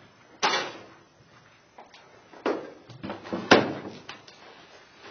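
A few separate sharp knocks and bangs a second or two apart, the loudest about three and a half seconds in.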